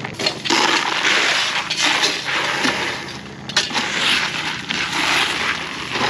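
Shovelfuls of No. 9 crushed stone poured into a cardboard box: a dry rattle of small stones, twice, each lasting about two seconds.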